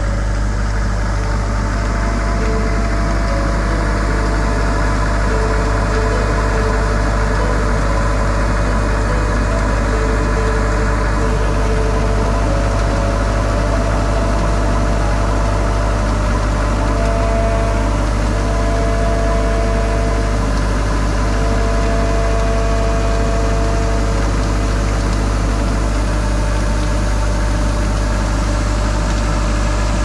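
Kartar combine harvester running steadily while its unloading auger pours threshed paddy into a trailer: a constant low engine hum with a few steady whining tones above it.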